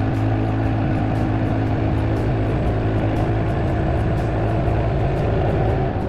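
Woodland Mills HM126 portable bandsaw sawmill running under load, its engine droning steadily as the band blade cuts through a southern yellow pine log.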